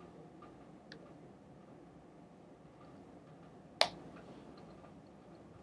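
Faint room tone with a light click about a second in and one sharp click just before four seconds in.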